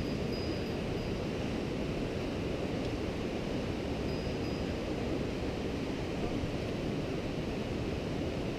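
Steady rushing noise with no distinct events: wind buffeting the microphone, mixed with a mountain stream running nearby.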